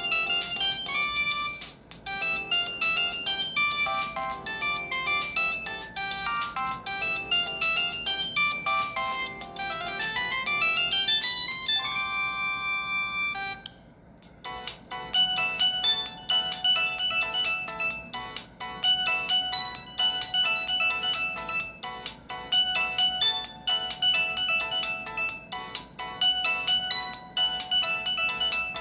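Samsung GT-E1151 mobile phone playing its polyphonic ringtones: one melody climbs in a rising run of notes to a held chord about halfway through, then after a short break a second ringtone starts and repeats its tune.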